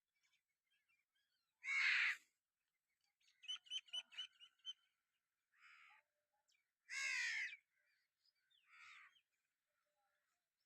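Crows cawing, with a loud caw about two seconds in and another about seven seconds in, and fainter calls between. A quick run of small bird chirps comes about three and a half seconds in.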